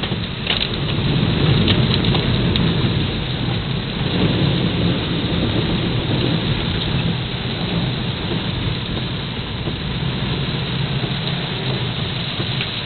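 Heavy rain falling steadily, with a deep rumble underneath that is loudest over the first few seconds.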